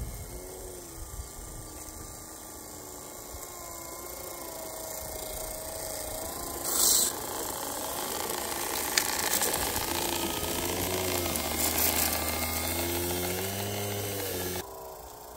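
G-scale track-cleaning train with a BW2 brush car and a grinding car running on the garden railway: small electric motors whining with a wavering pitch, growing louder toward the end, with a brief hiss about seven seconds in and a sharp click near nine seconds. The sound cuts off suddenly near the end.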